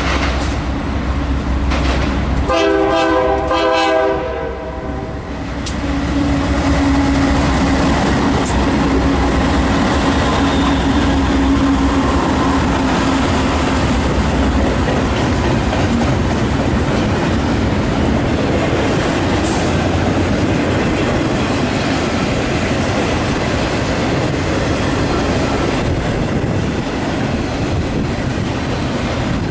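BNSF intermodal freight train with GE diesel locomotives passing close by. The horn sounds one chord about two and a half seconds in, lasting under two seconds. The locomotives' engines then go by, followed by the steady rumble and clickety-clack of container well cars over the rails.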